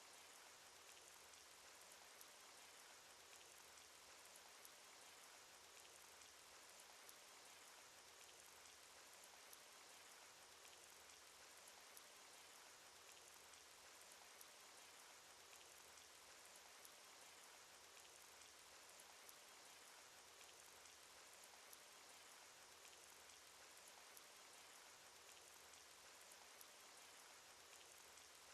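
Rain sound effect: faint, steady rainfall with scattered ticks of individual drops.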